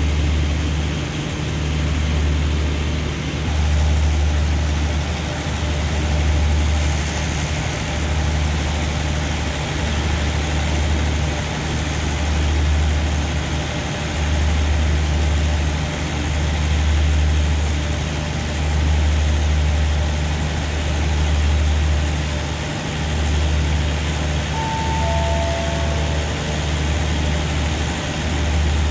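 A standing diesel passenger train idling, a steady low hum that swells and eases about every two seconds.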